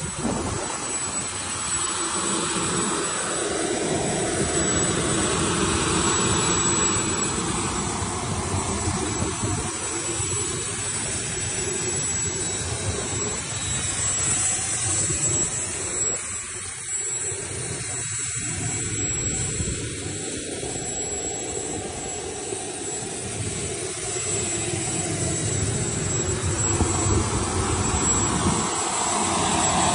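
Model jet turbine of a 1:4 scale F-104 Starfighter replica running on the ground: a steady jet rush with a thin high whine, swelling and easing slowly.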